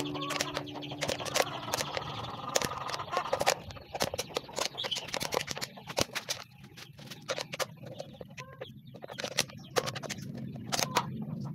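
Thin plastic drinking bottle crackling and crinkling in the hands while a hole is cut into its side with scissors: a run of sharp, irregular clicks and crackles.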